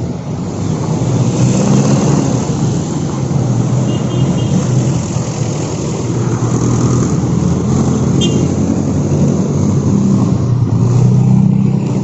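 Road traffic passing close by: a steady engine rumble of cars and motorcycles with tyre noise, swelling in the first couple of seconds and then holding.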